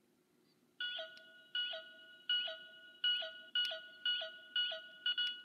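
Bandai Proplica Sailor Moon Moon Stick toy in monster detector mode: a repeating electronic beep through its small speaker. The beeping starts about a second in and comes faster toward the end.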